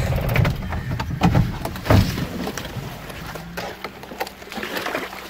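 A few sharp knocks and clunks from the off-road vehicle, the strongest about two seconds in, as the loud engine noise drops away; a faint steady low hum remains from about three seconds in.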